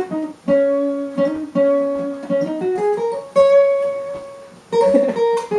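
Acoustic guitar playing an instrumental passage between sung lines: picked notes that ring and fade, with a climbing run of single notes about halfway through and a strummed chord near the end.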